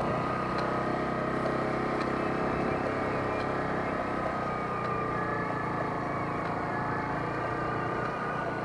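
Motorcycle engine running at a steady pitch while riding along the road.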